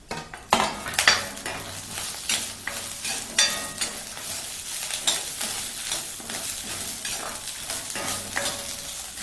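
Vegetables frying in oil in a kadai, sizzling steadily, while a steel ladle stirs them, scraping and clinking against the pan many times.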